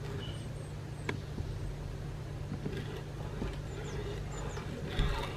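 Wooden spatula stirring milk in a metal saucepan, with faint scrapes and light clicks, over a steady low hum. A few faint high chirps come through near the start and again about four seconds in.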